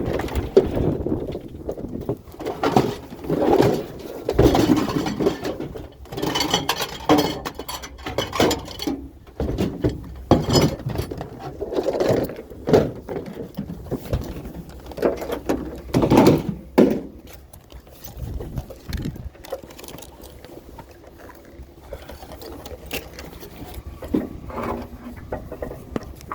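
Irregular knocks, clanks and scraping from scrap being worked on by hand, in uneven bursts with quieter stretches between them.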